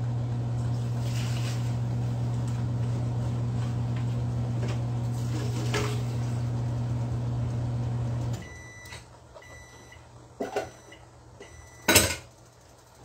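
Microwave oven running with a steady hum that cuts off about eight seconds in. A series of short beeps follows, signalling the end of the cycle, then a couple of sharp knocks, the loudest near the end.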